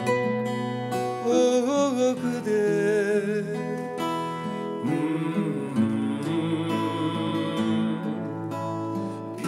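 Acoustic guitars playing a slow tune of plucked notes, with a wavering melody line over them from about a second in.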